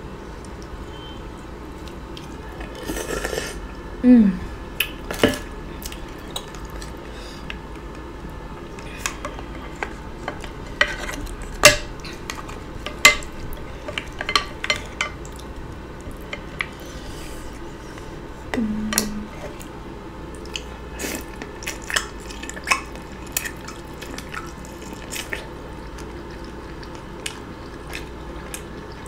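Close-miked eating of green-lipped mussels, corn and potatoes in butter sauce: wet chewing and smacking with many sharp clicks and taps scattered throughout. Two short low vocal sounds, one falling in pitch about four seconds in and one held briefly around nineteen seconds in.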